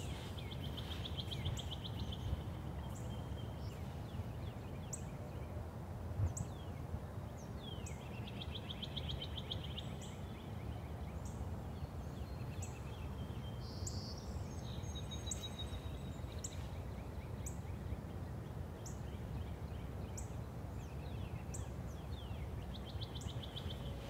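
Songbirds calling: a buzzy trill near the start and again about nine seconds in, and thin high chips about once a second, over a steady low rumble of outdoor background noise.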